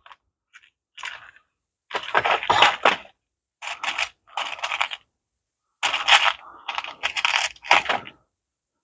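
Small metal parts and hand tools clicking and rattling as they are handled, in several short clusters of quick clicks.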